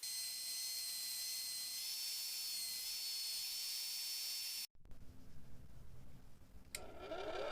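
Electric sander running steadily with a hissing, high whine that sags slightly in pitch partway through as it bites the steel, then cuts off suddenly a little over four and a half seconds in. Near the end a click and a small motor spinning up with a rising whine.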